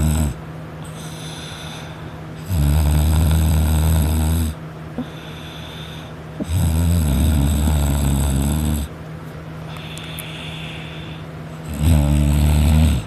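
A sleeping person snoring: three loud snores, each about two seconds long and about four seconds apart, with quieter breathing between them.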